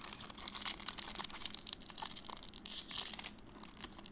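Foil wrapper of a Pokémon booster pack crinkling and crackling as fingers pull at its top edge to tear it open, with many small sharp crackles.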